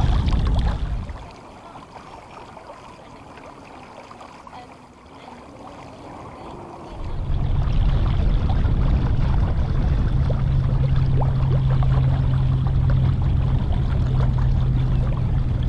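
Water washing and rushing along the hull of a sailing yacht under way. About seven seconds in it becomes much louder, with a heavy low rumble and a steady low hum.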